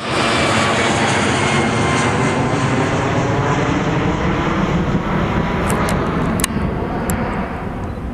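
Boeing 777F freighter's GE90 jet engines running loud and steady as the aircraft passes, the sound slowly dulling and easing as it draws away. A few sharp clicks come about two-thirds of the way in.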